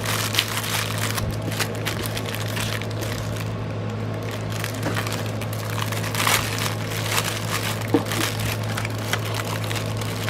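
Crinkling and rustling of packaging being handled, in irregular small crackles, over a steady low hum.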